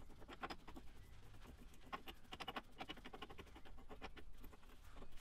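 Faint, irregular clicking and scratching as gloved hands spin a nut along the threaded rod of a rear axle bush installation tool, snugging the sleeve up into place.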